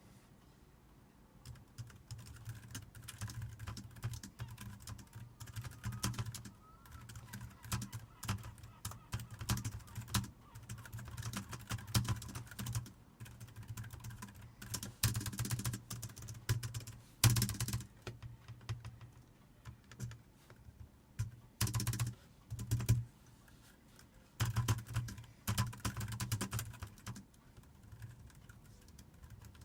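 Typing on a computer keyboard: quick runs of key clicks with short pauses between them, and a low thud of the keys bottoming out under each run.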